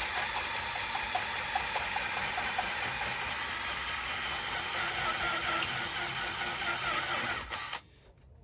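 Electric drill with a 5 mm twist bit running steadily as it drills through the metal tab of a small spinner target, with a wavering squeal of bit on metal in the later part; it stops shortly before the end.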